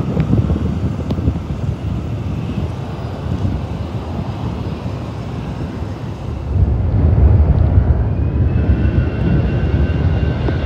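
Airbus A321 jet engines spooling up for takeoff: a steady low rumble that grows much louder about six and a half seconds in, with a steady high whine joining it a couple of seconds later.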